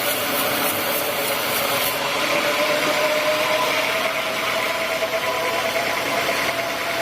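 Sawmill machinery running steadily, with a steady whine that creeps slightly up in pitch. A fast, even high hiss stops about two seconds in.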